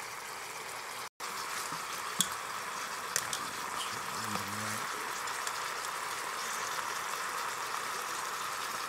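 Oxtails sizzling steadily as they brown in oil in a non-stick pot, with a few sharp clicks of metal tongs turning them. The sound cuts out briefly about a second in.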